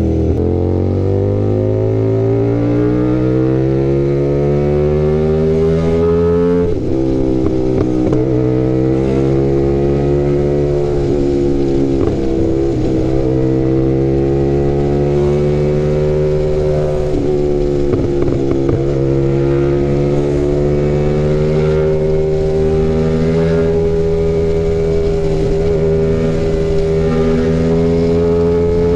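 Sport motorcycle's engine heard from on board, pulling hard with its pitch climbing for the first six seconds or so, then dropping sharply at an upshift. After that it holds a steady cruise with a few brief dips in the engine note, over low wind rush.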